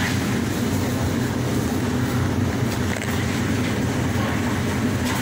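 Steady low hum with a hiss over it: supermarket background noise by the refrigerated seafood display cases.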